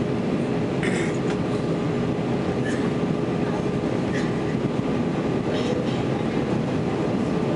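Steady cabin noise of a jet airliner on descent: engine drone and airflow rumble with a constant low hum running through it.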